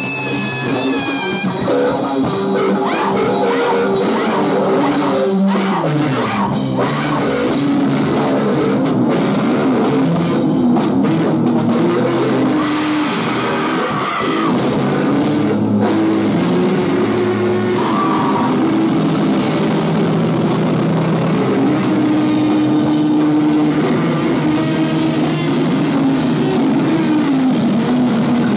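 Live rock band playing loudly: electric guitars and a drum kit, with held guitar notes that slide down and back up in pitch now and then.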